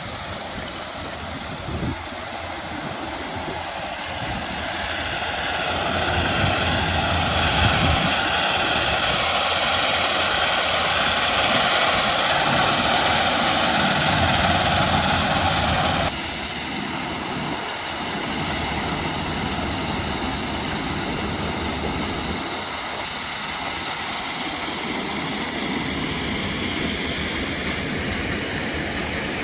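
Heavy machinery running steadily, a dense mechanical drone with a whine on top. It builds over the first several seconds and drops abruptly to a lower, steady level about 16 seconds in.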